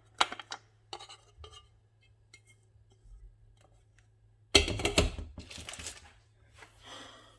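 Kitchen utensils and dishes clinking as steamed dried figs and garlic are moved into a bowl: a few light knocks, a quiet stretch, then a louder clatter lasting over a second about four and a half seconds in.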